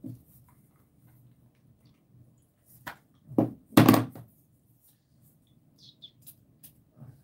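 Perfume spray bottle being handled and sprayed: a few short knocks and bursts about three to four seconds in, the loudest near four seconds.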